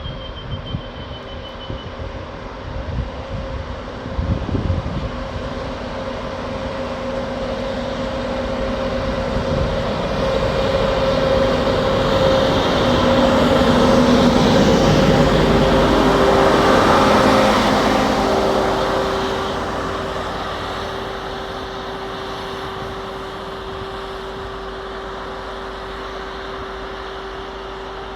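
LINMAG SF02 W-FS truck-mounted rail milling machine running past on the rails, its engine drone growing louder to a peak about halfway through and then fading as the tone drops in pitch. Wind buffets the microphone in the first few seconds.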